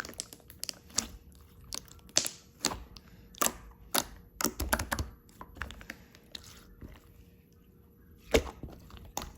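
Irregular sharp clicks and taps, like small objects being handled and set down up close, with some brief rustling; one louder knock near the end.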